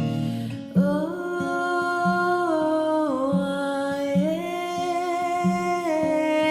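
Worship music: a voice singing long held notes that glide from one pitch to the next over a steady pulsing accompaniment.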